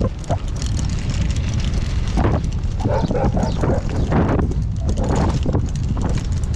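Wind rumbling and buffeting on the microphone of a moving bicycle. Several brief, higher, pitched sounds come and go over it in the middle.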